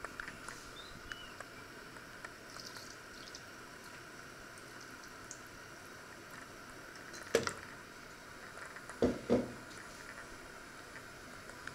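Water poured from a plastic jug onto the lid of a hot enamelled cast-iron casserole in an open oven. One sharp knock comes about seven seconds in, and two more in quick succession about two seconds later.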